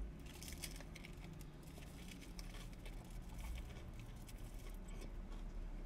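A person chewing a big mouthful of chicken waffle cone: faint, irregular small clicks of chewing over a low steady hum.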